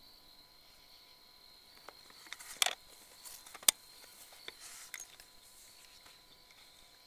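A few rustles and short clicks, with one much louder sharp crack about three and a half seconds in, over a steady high whine.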